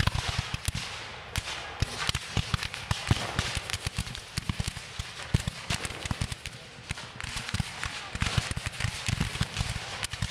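Dense, irregular crackle of many musket shots overlapping, as of massed infantry fire in battle.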